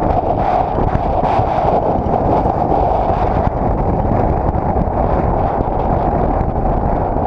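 Steady wind rumble on the microphone of a camera mounted outside a moving Nissan GU Patrol with a TD42 diesel, with the vehicle's running and road noise underneath.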